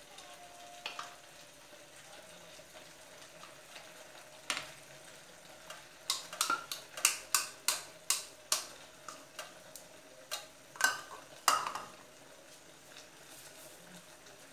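Sausages and meat sizzling gently in a frying pan while a spoon knocks and scrapes against a small bowl and the pan, a quick run of sharp clicks through the middle, as tomato sauce is scraped into the pan.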